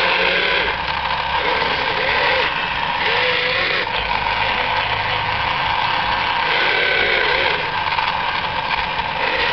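Radio-controlled model wheeled excavator at work: a steady engine-like drone, with short wavering motor whines that come and go several times as the arm digs and the upper body swings.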